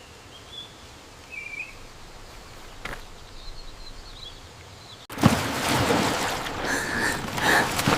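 Quiet outdoor ambience with a few faint bird chirps. About five seconds in, a sudden, much louder noisy sound cuts in and carries on.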